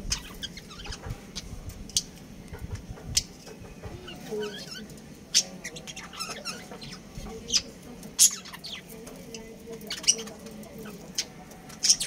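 Budgerigars chirping and chattering: short, sharp high chirps every second or so over a soft, steady background warble.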